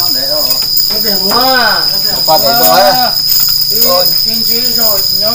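A steady high-pitched insect drone from crickets, with people talking over it.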